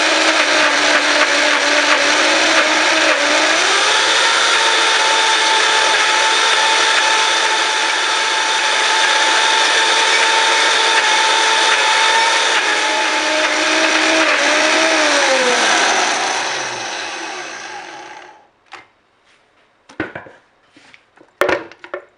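Vitamix blender running, blending soaked cashews and water into a thick cream. Its pitch steps up a few seconds in; about three-quarters of the way through it winds down and stops, followed by a few knocks as the jar is lifted off the motor base.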